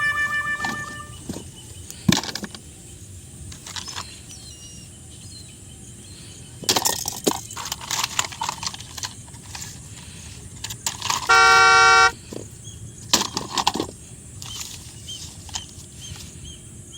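Toy vehicle horn beeping: a pitched tone fading out at the start, and a loud, steady beep of under a second about eleven seconds in. In between are scattered clicks and rattles of plastic toys being handled.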